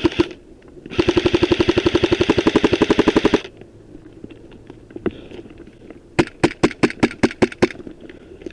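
Airsoft guns firing: a full-auto burst of about two and a half seconds, roughly fifteen shots a second, then a single shot, and about a second later a quick string of about eight separate semi-auto shots.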